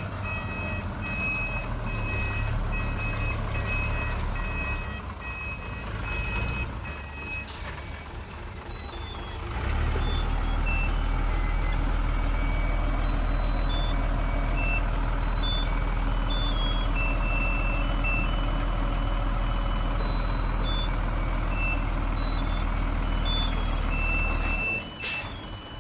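Heavy earthmoving machinery's diesel engine running with a pulsing reversing alarm beeping over it. About ten seconds in, the engine becomes louder and steady under load, then drops off suddenly near the end as the beeping returns.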